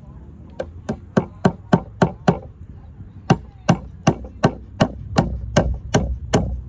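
Claw hammer driving nails into a wooden block to fasten it to a timber post. Quick, sharp strikes: a run of about seven, a short pause, then about ten more at roughly three a second.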